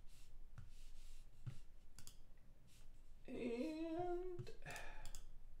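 A man's brief hum, rising in pitch and lasting about a second, starting about three seconds in, with a few light clicks before and after it.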